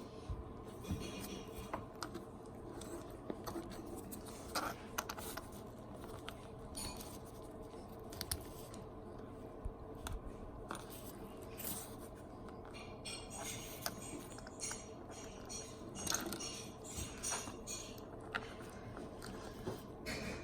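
Small 3D-printed PLA parts of a miniature crawler being handled and taken apart: irregular light clicks and scrapes over a steady low hum.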